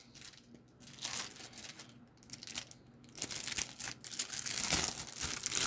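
Clear plastic bag around a folding knife crinkling as it is handled and lifted out of its box, in scattered bursts at first, then denser and louder from about three seconds in.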